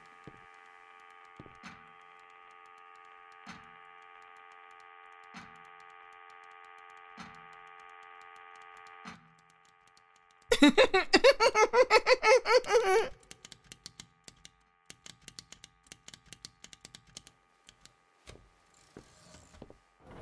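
Film sound design of a machine: a steady hum of several held tones, with a soft low thump about every two seconds, stops about nine seconds in. About a second and a half later a loud, rapidly pulsing rattle lasts some two and a half seconds, then gives way to scattered faint clicks.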